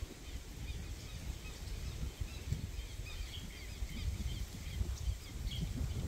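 Small birds calling: many short, high chirps scattered throughout, over an uneven low rumble.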